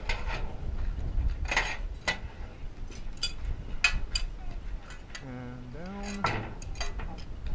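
Iron wagon tire and long iron tongs clanking and clinking as the tire is carried from the fire and lowered over a wooden wagon wheel for tiring.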